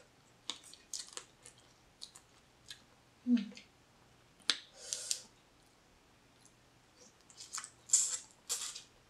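Close-miked eating sounds: wet mouth clicks, lip smacks and sucking as blue crab meat is eaten off the fingers, in scattered short bursts, loudest about three seconds in and again near the end.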